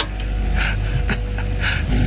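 An engine running steadily at a low pitch, with two short hissing bursts, one about halfway through and one near the end.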